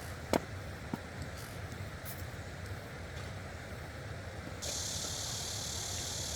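Steady low rushing of a loud stream, with a sharp click just after the start and a smaller one about a second in. About four and a half seconds in, a steady high hiss comes in suddenly on top.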